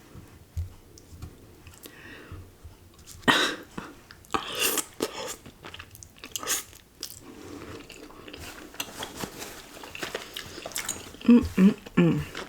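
Close-miked eating of cheesy ramen noodles and chewy Korean rice cakes: wet chewing with several loud, short noisy bursts at about three, four and a half and six and a half seconds in.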